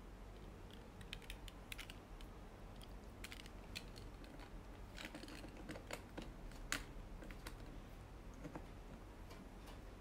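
Faint small plastic clicks and taps as a USB flash drive is handled and pushed into the party speaker's USB port, with one sharper click a little past halfway, over a low steady hum.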